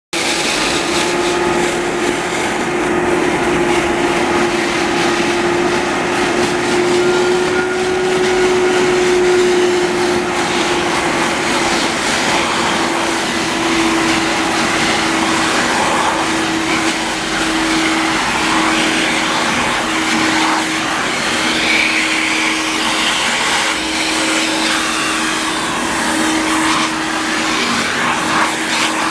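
Industrial wet/dry vacuum running continuously: a steady motor hum with a rushing hiss of airflow. Its pitch drops slightly about halfway and wavers a little toward the end.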